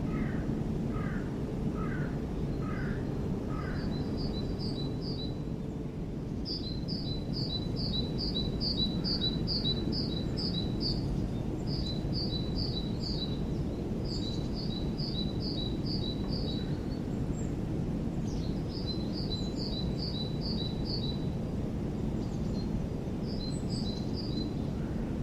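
A small songbird singing bursts of quick, high two-part notes, about three a second, in phrases of a few seconds with short pauses between them. At the start, a series of about five lower calls, roughly half a second apart. A steady low rumble of background noise runs underneath.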